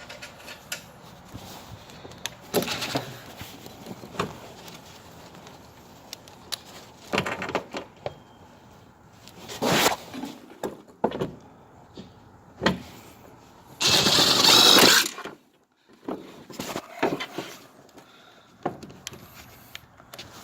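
A power drill driving mounting screws in two short runs: a brief one about halfway through, and a louder one lasting just over a second about two-thirds of the way in. Scattered knocks and clicks from handling the panel and screws come in between.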